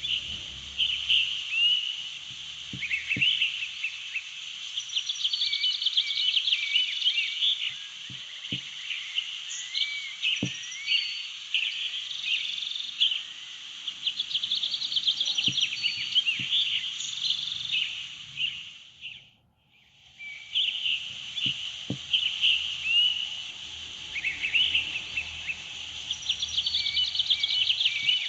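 Birdsong nature ambience: many birds chirping and whistling over a steady high, insect-like hiss. The whole thing fades out and back in about two thirds of the way through.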